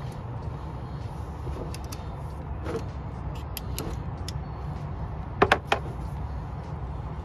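Scattered light metallic clicks and clinks of hand tools and parts being handled, then two sharp metal clanks in quick succession about five and a half seconds in, over a steady low hum.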